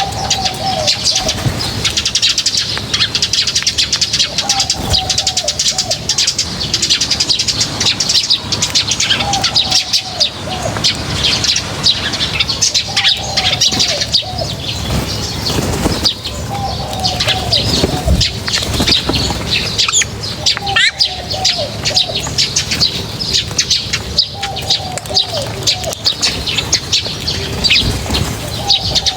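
A flock of small birds chirping continuously and densely, with a lower cooing call, as of a dove, repeating about every four seconds.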